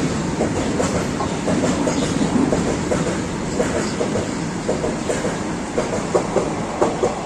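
Freight train of BOXN open wagons rolling, a steady rumble with the clickety-clack of wheels over rail joints, and sharper knocks toward the end.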